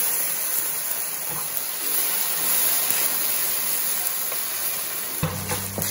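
Ground beef and a beef bouillon cube sizzling steadily in a hot stainless-steel skillet over a gas flame.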